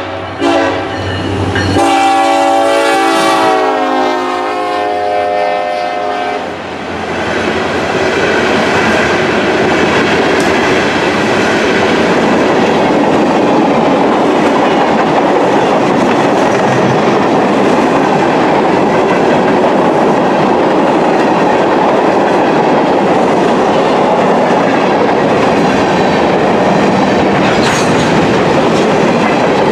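Arkansas & Missouri SD70ACe diesel locomotives pass close by sounding their multi-note air horn, its pitch dropping as they go by, until about six seconds in. Then a long string of freight cars rolls past with steady wheel-on-rail noise and clickety-clack, with one sharp clank near the end.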